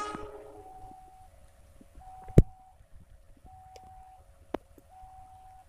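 A two-tone electronic warning signal alternating steadily between a higher and a lower note, each held for about two-thirds of a second, while a train approaches. It opens on the tail end of the diesel locomotive's horn. A few sharp clicks fall through it, the loudest about two and a half seconds in.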